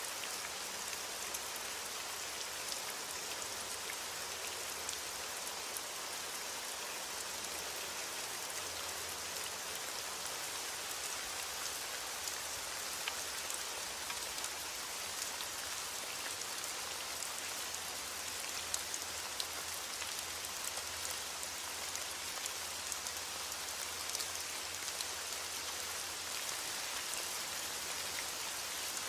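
Heavy rain beating on a window glass, a steady hiss with scattered small ticks and clicks through it.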